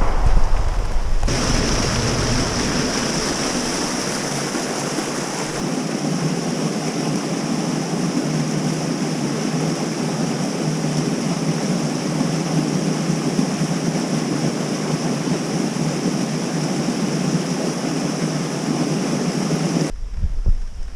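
Steady rushing of river water, an even noise with no rhythm. Wind buffets the microphone in the first second, and the water sound starts and stops abruptly, like edited cuts.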